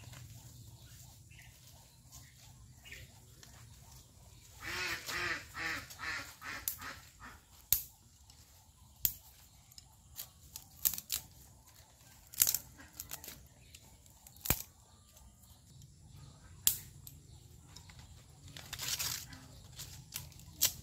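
Bamboo being split and broken into thin slivers by hand: a string of sharp cracks and snaps, with two longer, rough, rasping tearing stretches about five and nineteen seconds in.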